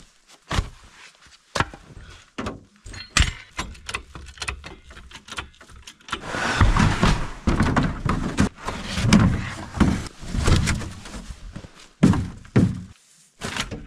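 Handling noise from work at a tracked UTV's rear wheel and track: a run of sharp knocks and clunks, a few seconds of scraping and rustling in the middle, and a hard thunk near the end.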